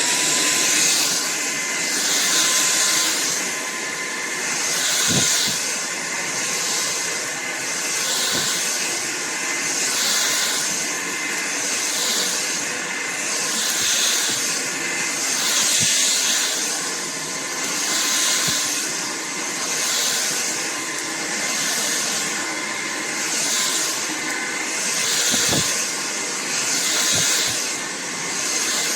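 AlloyMove cordless stick vacuum running with a steady motor whine and rushing airflow, the sound swelling and easing about every two seconds. A couple of faint knocks.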